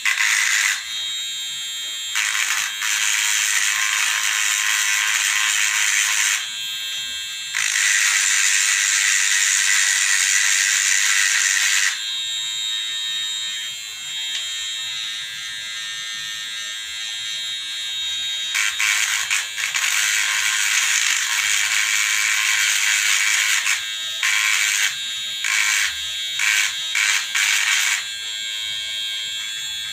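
Harsh electrical buzz that cuts in and out, in stretches of one to several seconds, flickering on and off rapidly near the end.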